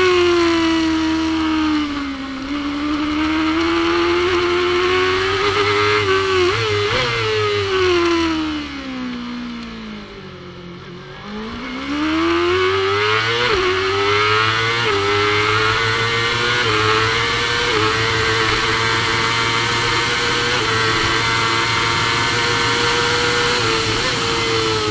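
Supersport racing motorcycle engine at racing speed, revving high. It drops sharply in pitch and gets quieter as the bike brakes and downshifts for a slow corner around ten seconds in, then climbs hard through the gears, the pitch stepping down briefly at each upshift.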